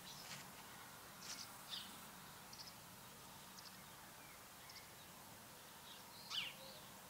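Faint bird chirps in a quiet yard: short, high calls scattered at irregular intervals, the loudest about six seconds in.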